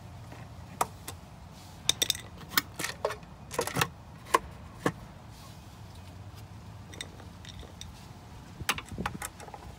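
A scatter of sharp clicks and light knocks from hands handling the plastic drive housing of a Pentair IntelliFlo variable-speed pool pump, with some small metallic clinks, mostly in the first half and again near the end, over a steady low hum.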